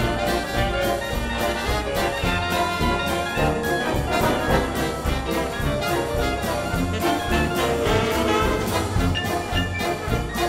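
Dixieland jazz band playing together with a symphonic wind band: trumpet and trombones over a full band, with a washboard played with metal thimbles keeping a steady beat.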